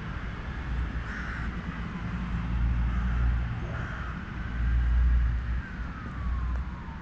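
Crows cawing a few times in the background over a loud, uneven low rumble of wind on the microphone. Near the end a faint thin tone slides downward in pitch.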